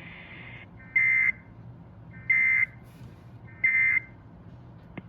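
Sage EAS encoder/decoder sending the Emergency Alert System end-of-message data burst three times: three short, shrill digital warbles about a second apart, marking the end of the relayed severe thunderstorm warning.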